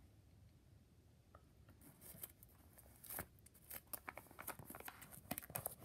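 Plastic binder sleeve page crinkling and rustling as it is handled and turned, a run of crackly clicks starting about two seconds in.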